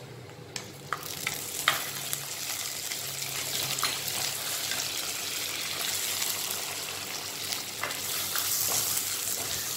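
Whole spices, green chillies and curry leaves sizzling and spluttering in hot coconut oil in a clay pot, with a ladle clicking against the pot as they are stirred. The sizzle starts about a second in and grows steadily.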